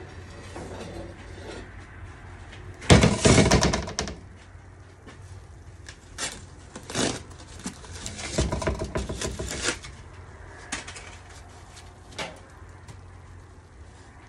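Metal clattering and scraping as a pizza peel and a black pizza pan are handled on a metal-topped table: a loud rattling burst about three seconds in, more rattles and knocks a few seconds later, then a few light taps.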